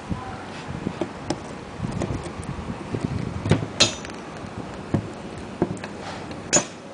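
Metal parts of a wet clutch knocking and clinking as it is taken apart by hand: a run of small knocks, with the sharpest clinks about three and a half seconds in and near the end.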